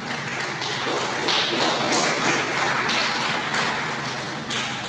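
Audience clapping in a hall, uneven and swelling and easing over a few seconds.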